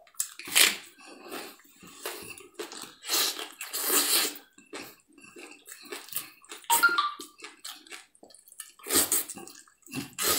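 Close-up wet eating sounds: chewing, sucking and slurping meat off the bone, with lip smacks and small clicks, in irregular bursts.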